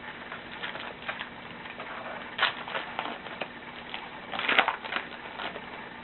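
Crinkling and tearing of a baseball card pack's foil wrapper, with the cards being slid out and handled. There are irregular crackles, and the loudest rustling comes about two and a half seconds in and again around four and a half seconds in.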